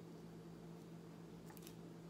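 Near silence: a steady low room hum, with a couple of faint light clicks about one and a half seconds in as a plastic cup of paint is picked up.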